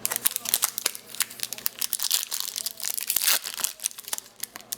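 A Topps baseball card pack's wrapper being torn open and crinkled by hand, a quick run of crackling, rustling crinkles that thins out near the end.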